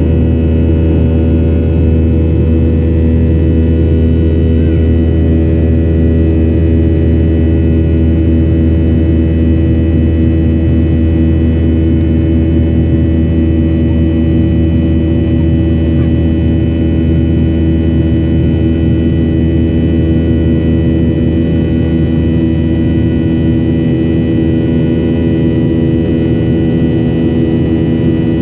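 Boeing 737-800's CFM56-7B jet engines heard from inside the passenger cabin: a loud, steady drone with a deep hum and several held tones over it, an engine noise the passenger finds strange and new.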